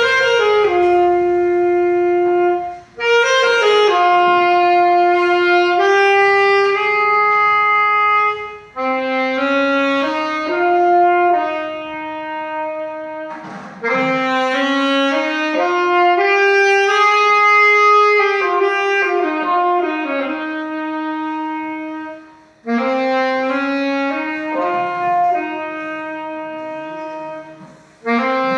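Saxophone playing a slow melody of held notes in phrases, with brief breaths between them.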